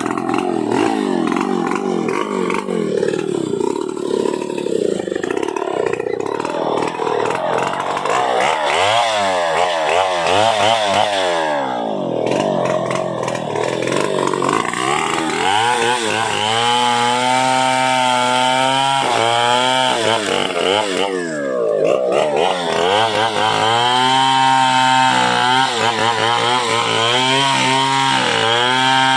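Stihl 070 two-stroke chainsaw running. It is rough and low at first, then revved up and down several times and held at high speed between the revs.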